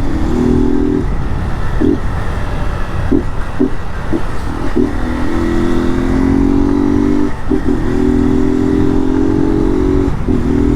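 Honda Start 190 motorcycle engine, running without an air filter, pulling at steady revs while riding. The note holds level for a few seconds at a time, with short breaks as the throttle closes or a gear changes, over steady wind rumble on the microphone.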